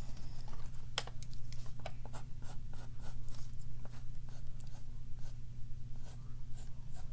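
Scratching strokes on paper from a drawing tool, a series of short scrapes at an uneven pace, over a steady low hum.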